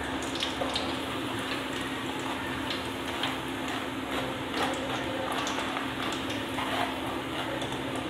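Moong dal deep-frying in hot coconut oil inside a wire mesh strainer: a steady sizzle with many small scattered crackles. A steady low hum runs underneath.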